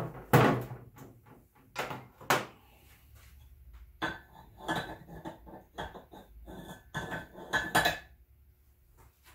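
Metal transfer-case parts being handled and set down: a few separate clanks in the first couple of seconds, then a run of quicker, lightly ringing clinks about four to eight seconds in.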